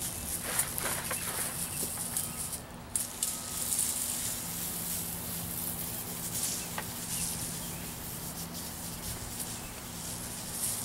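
Hand-pumped garden sprayer misting water onto concrete: a steady hiss of spray that stops briefly about three seconds in, then carries on.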